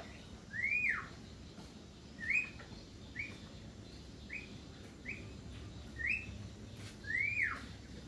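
Caged Javan myna (jalak kerbau) giving a string of whistled notes, about one a second. Two long whistles that rise and then fall, one just after the start and one near the end, frame five short upslurred whistles.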